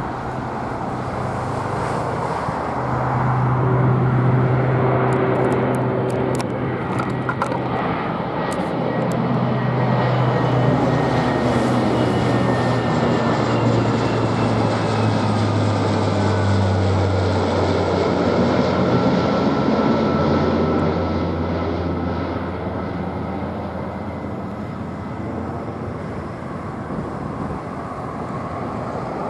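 Lockheed MC-130J Hercules's four turboprop engines and six-bladed propellers droning as it flies low overhead. The propeller hum drops in pitch as it passes, then fades gradually as the aircraft moves away.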